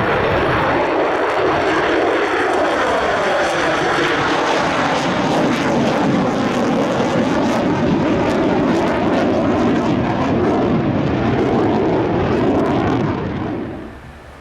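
F-35A fighter's single jet engine running loud as the jet passes, with slowly sweeping tones that rise and fall through the noise. It fades away near the end.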